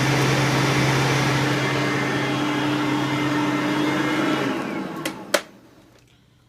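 Hoover upright vacuum cleaner's motor and brushroll running steadily on high, then switched off and winding down about four and a half seconds in. Two sharp clicks follow just after it stops.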